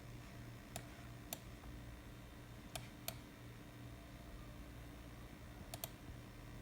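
Faint, sharp clicks, about six scattered at uneven intervals, some in close pairs, over a low steady hum.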